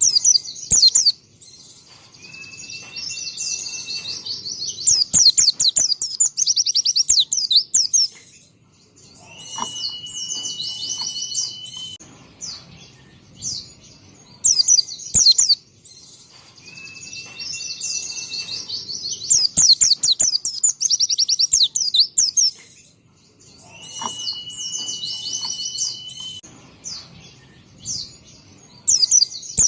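White-eye (pleci) singing: bursts of rapid, high chattering trills mixed with long level whistles held for a second or two, broken by short pauses, the same phrase sequence coming round about every fourteen seconds.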